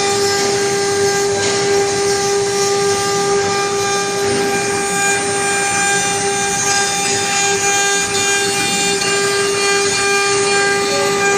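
CNC router spindle running steadily while its bit mills wood: a steady high whine over a rough cutting noise.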